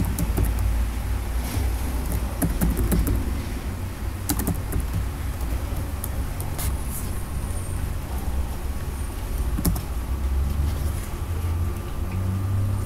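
Low, steady rumble of trucks and vans going by on a road outside, with a few sharp keyboard clicks.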